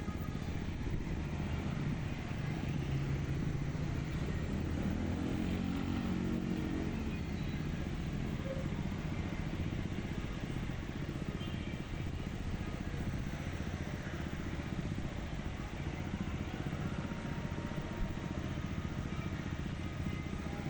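City street traffic: a steady rumble of motorcycle and vehicle engines, with one engine passing close about five seconds in.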